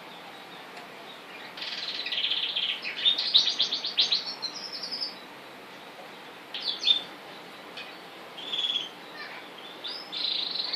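Domestic canary singing: a long phrase of rapid, high trills and chirps starting about a second and a half in and lasting about three and a half seconds, then shorter bursts of song near the middle and toward the end.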